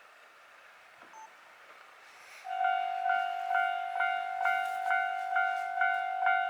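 Japanese railway level-crossing warning bell starting up about two and a half seconds in, then ringing steadily at a little over two strikes a second.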